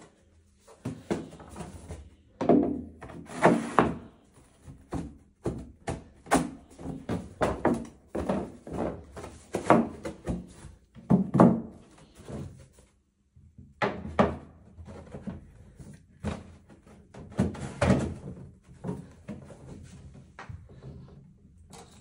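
White flat-pack cabinet panels knocking and bumping against the cabinet frame and each other as they are lifted and fitted: a long run of irregular thunks and knocks.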